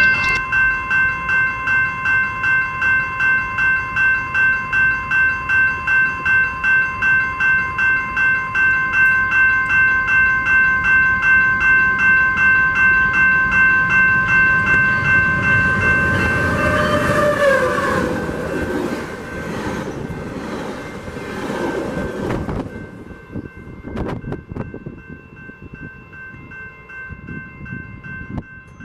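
Railroad grade-crossing warning bell ringing steadily about twice a second while a train passes. The train's rumble swells to the loudest point about two-thirds of the way through, with a tone sliding down in pitch as it goes by, then drops away suddenly. The bell rings on more faintly after that.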